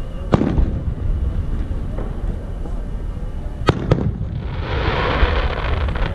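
Fireworks bursting: one sharp bang about a third of a second in and two more close together near four seconds, followed by a hiss lasting about two seconds. A steady low rumble runs under it all.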